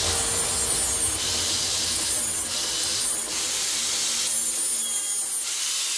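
Rasping strokes of a hand tool working a square steel tube clamped in a vise, uneven, some about a second long and some short, over a steady hiss.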